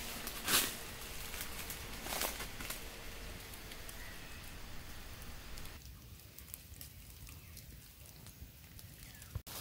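Open wood fire crackling, with a few sharp pops in the first few seconds, the loudest about half a second in; quieter from about six seconds in.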